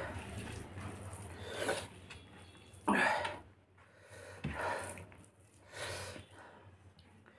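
A man's sharp breaths and sniffs between mouthfuls, in about five separate bursts, the strongest about three seconds in: the breathing of someone eating chilli-hot food.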